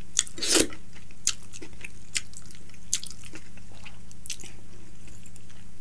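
Chewing a mouthful of rice by hand-fed bites: scattered short wet mouth clicks and smacks, the loudest about half a second in. A steady low hum runs underneath.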